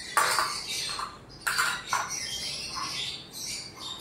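Small plastic spice bowls knocking and rattling against a glass mixing bowl as spice powder is tipped onto raw chicken: a few short, sharp clatters.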